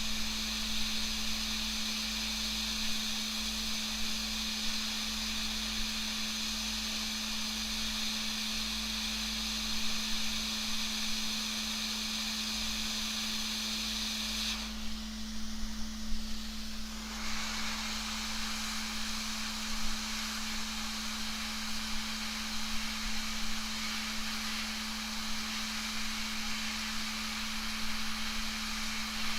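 Steady hiss of a hot air rework station blowing, over a constant low hum; the hiss thins for a couple of seconds about halfway through.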